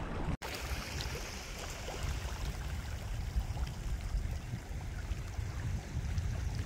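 Steady outdoor noise of choppy water rippling and lapping, with a constant low rumble underneath.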